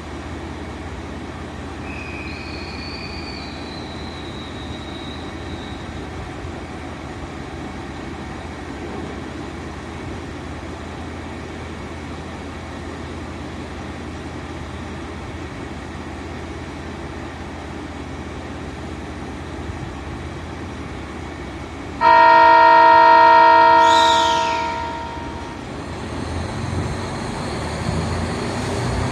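Kiha 261 series diesel express train standing with a steady low hum, then sounding its horn once, loud and sudden about 22 seconds in and fading out over about three seconds as a departure signal. Near the end a low rumble builds as the diesel engines pull away.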